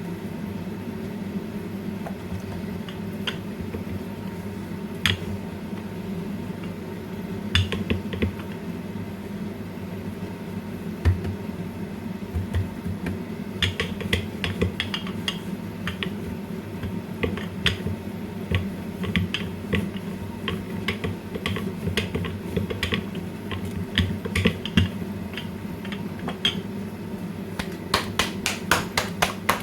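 Hands working chapati dough in a kitchen: scattered light taps and clicks over a steady low hum, with a quick run of slaps near the end.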